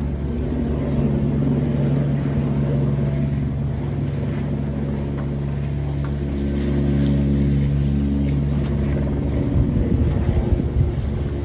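Helicopter hovering overhead and lifting a slung load, its rotor and engine making a steady drone that shifts in pitch about seven seconds in. Rotor downwash buffets the microphone near the end.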